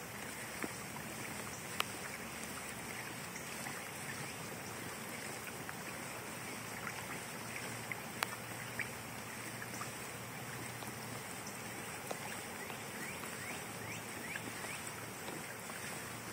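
Water lapping and trickling against a moving kayak's hull as a steady wash. A couple of sharp clicks stand out, and there are a few faint short high chirps in the second half.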